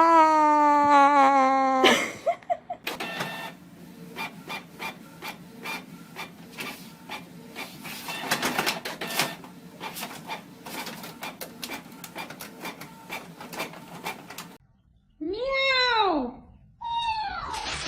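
A cat's long drawn-out yowl that breaks off about two seconds in. Then comes some twelve seconds of quick, irregular clicking and tapping. Near the end there are a couple of short meows that rise and fall in pitch.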